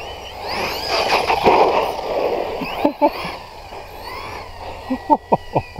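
JLB J3 Speed RC car on a 3S battery making a high-speed run, its brushless motor whining up and down in pitch over tyre noise, loudest in the first couple of seconds. A few short sharp sounds follow near the end.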